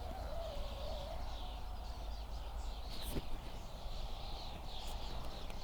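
Fishing line whistling as a hooked carp pulls it through the water, a wavering tone that fades out about a second in. Birds chirp throughout.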